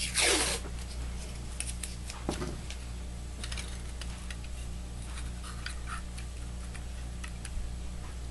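Blue masking tape ripped off the roll in a short rasp right at the start, then faint scattered ticks and taps as fingers press the tape around a stack of mirror strips and cardboard, over a steady low hum.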